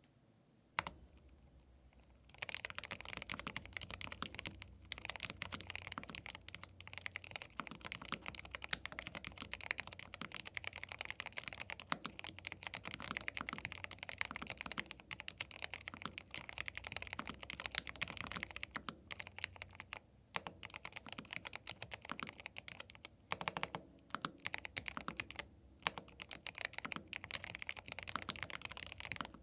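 Fast, continuous typing on a YUNZII B75 Pro gasket-mount 75% mechanical keyboard with Milk linear switches. It starts about two seconds in, after a single click, with a few brief pauses.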